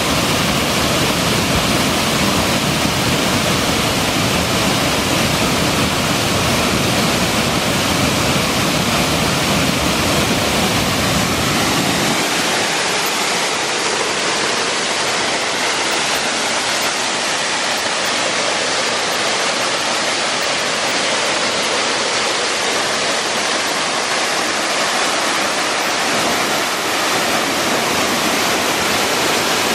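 Small waterfall cascading down a rock face into a pool: a loud, steady rush of water. About twelve seconds in, the deep low rumble drops away, leaving a higher, hissing rush.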